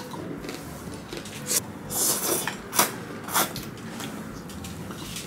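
Close-miked eating sounds: chewing and slurping egg noodles (pancit miki) picked up with chopsticks. A string of sharp mouth clicks and crunches, about two a second, with a longer hissing slurp about two seconds in.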